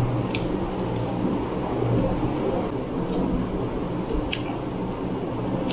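Steady whirr of a running electric fan, with scattered short wet clicks of chewing and lip and finger smacks from people eating chicken and rice by hand.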